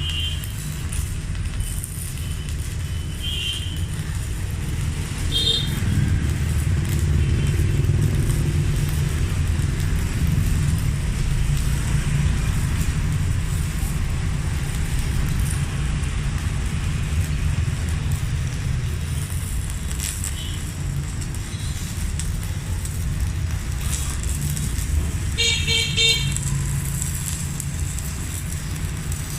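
Stick welding with a 3.2 mm electrode on a Megatec mini inverter welder, the arc sizzling and crackling steadily during a continuous run, which holds the machine under heavy load. Street traffic runs underneath, with short horn honks a few times, the clearest about 25 s in.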